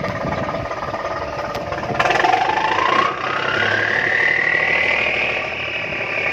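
Cummins 750-horsepower diesel of a fishing trawler revving up under load. Its note jumps louder about two seconds in, then a whine climbs steadily in pitch as the engine picks up speed.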